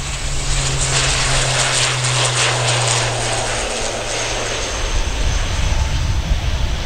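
Wings Air ATR 72-600's twin Pratt & Whitney PW127M turboprops at takeoff power as the aircraft lifts off and climbs out: a steady low propeller drone under a loud high-pitched rush. The low drone drops away about three and a half seconds in.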